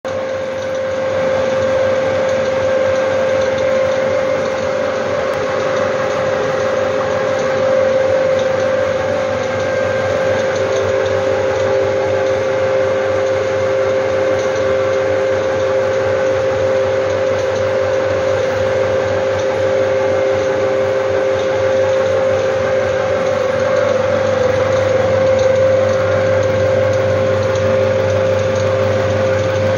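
Strong Simplex Millennium 35mm film projector running: a steady mechanical whir with a constant whine, and a second, slightly lower whine that joins about ten seconds in.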